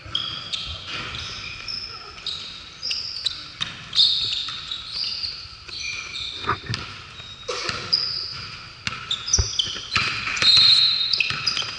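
Basketball players' sneakers squeaking on a hardwood gym floor in many short high chirps, with a basketball dribbled and thudding on the court. A longer high squeal comes near the end.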